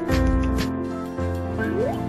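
Background music with held chords over a repeating low beat, and a short rising note near the end.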